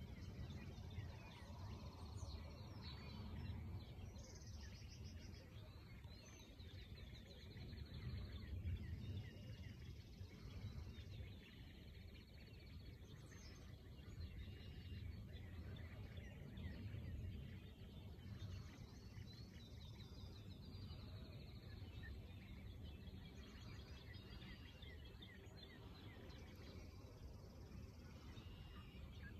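Faint bird chirps and twitters, scattered throughout, over a steady low rumble of wind on the microphone.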